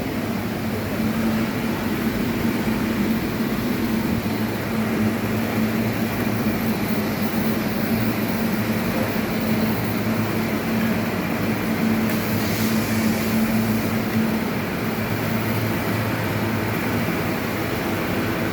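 Heavy machinery running steadily with a low hum.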